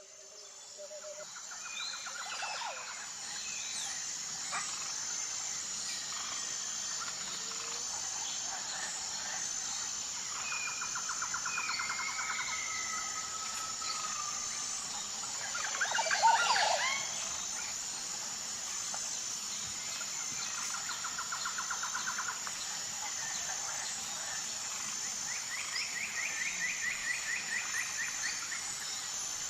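Jungle ambience: a steady high-pitched buzz with birds calling over it, in repeated trills and whistled glides. The loudest calls come in a brief burst about 16 seconds in.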